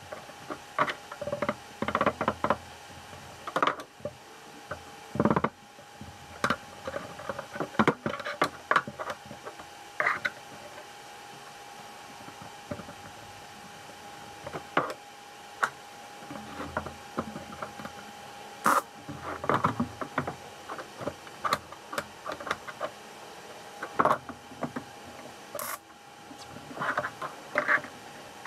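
Irregular knocks and clinks of steel square tubing and hand tools being handled while fitting frame tubes, some sharp and loud, over a steady faint hum.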